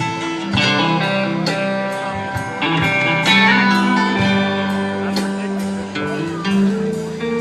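Live band playing an instrumental lead-in: strummed guitar chords over a steady beat.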